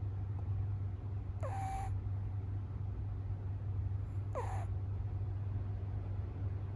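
A sleeping kitten snoring: on each breath, about every three seconds, there is a short whistling sound that falls in pitch. It comes twice here, over a steady low hum.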